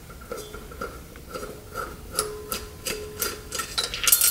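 Light metallic clicks, about two to three a second, as a hand tool works the bolts of an old Ford brake master cylinder; the cylinder's metal reservoir rings briefly after each click.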